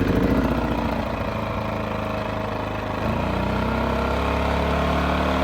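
Amerisun 2500-watt portable generator's small carbureted engine running steadily just after being pull-started, with eco mode off. About three seconds in, its speed rises a little and settles at a slightly higher steady pitch.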